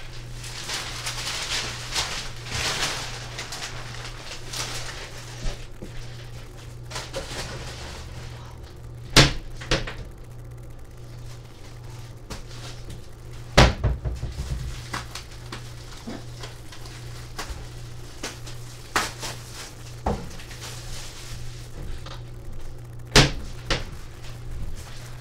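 Kitchen handling noises: a handful of sharp knocks and thuds from cupboards and items on the counter, three of them louder, spread through, over a steady low hum.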